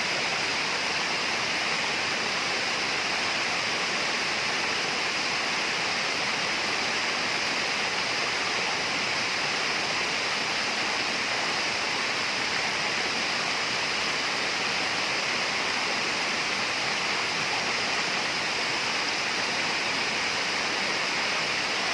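Steady tropical rainforest ambience: a constant, unbroken rushing hiss like flowing water, with no distinct calls or knocks.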